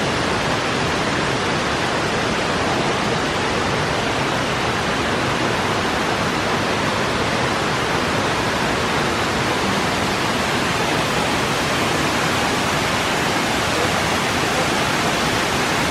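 Waterfall: a loud, steady, even rush of falling water.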